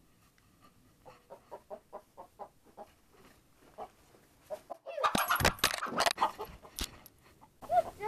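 A hen clucking, a run of short soft notes about three a second. About five seconds in comes a louder stretch of sharp knocks and scuffling.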